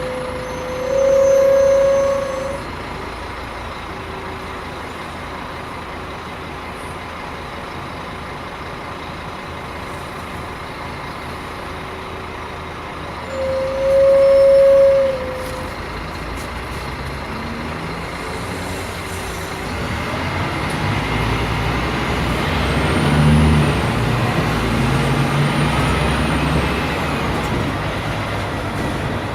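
Scania K310 bus engine idling quietly, broken twice by a loud steady electronic tone lasting about two seconds each; a few seconds after the second tone the engine picks up and pulls away, rising in pitch as the bus accelerates.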